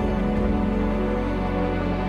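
Background music: steady, sustained chords.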